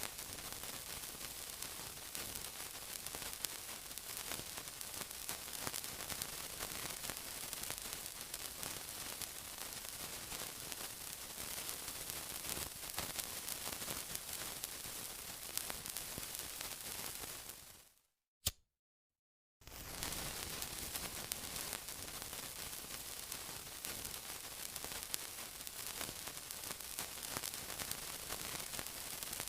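Continuous sizzling with dense fine crackling. About eighteen seconds in it fades out to silence for a second and a half, broken by one sharp click, then starts again at full level.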